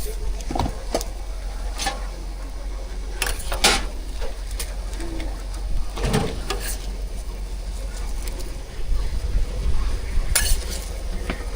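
Cooking clatter at a street food stall: scattered clinks and knocks of utensils against pans and dishes over a steady low hum.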